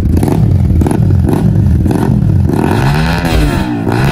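Yamaha R15 V4's single-cylinder four-stroke engine running through a newly fitted aftermarket exhaust. It is revved twice in the second half, its pitch rising and falling each time.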